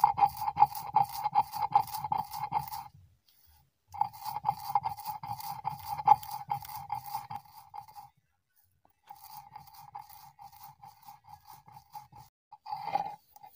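Stone roller rocked and rubbed back and forth on a grooved stone grinding slab (sil-batta), crushing dry-roasted spice seeds into powder: a rhythmic grinding scrape of about four strokes a second, in three bouts with short pauses, the last bout quieter.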